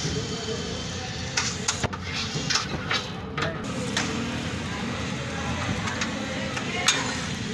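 Metal spatula scraping and clacking on a flat steel griddle while egg is worked across it: a run of short sharp scrapes in the first half and one more near the end, over a steady background rumble with voices.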